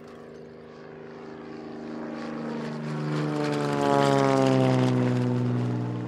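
An engine passing by: a humming, many-toned engine sound that grows louder and then fades, its pitch sliding down as it goes past.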